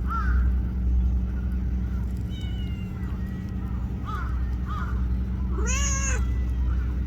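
A small tortoiseshell cat meowing: a few short, soft mews, then one louder, longer meow about six seconds in that rises and falls in pitch.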